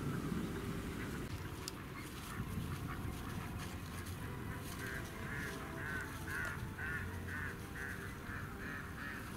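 Mallards quacking: a run of about ten quacks, about two a second, from about five seconds in, over a low steady rumble.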